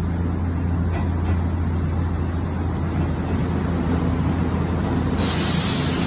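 Electric commuter train pulling slowly into a station platform: a steady low hum with a noisy rumble over it, and a hiss joining about five seconds in.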